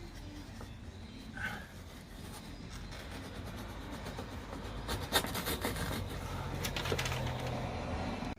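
Rubbing and scraping of material being worked by hand, with a cluster of sharp clicks and knocks about five seconds in. It builds to a steady rough rasp and cuts off suddenly at the end.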